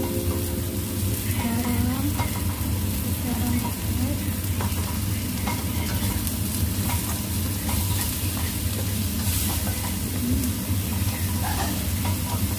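Eggplant, chili and garlic sizzling in a granite-coated frying pan as a nylon slotted spatula stirs and turns them, with light scrapes and taps of the spatula on the pan. A steady low hum runs underneath.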